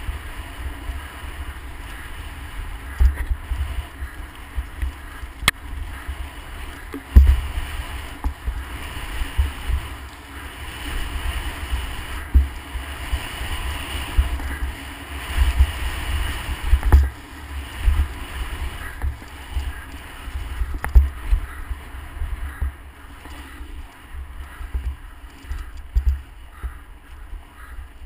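Wind buffeting the microphone of a camera moving at speed down a dirt trail, with tyre hiss and a few sharp knocks and rattles as the bike hits bumps.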